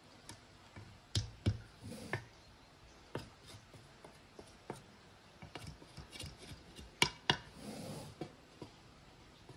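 A wooden spoon spreading and pressing cooked saffron rice in a nonstick pot: soft scraping and rustling, with scattered sharp taps of the spoon against the pot, the loudest a close pair about 7 seconds in.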